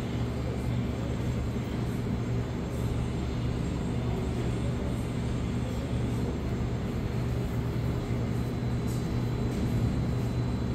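Steady low hum with rumbling noise under it on an underground subway platform, the ambient drone of station machinery or a standing train's equipment; no train moves.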